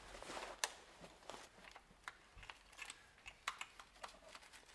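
Faint, irregular small clicks and taps from the ignition coils and their connectors being handled and pushed back into place on a BMW M50 straight-six after a spark plug change.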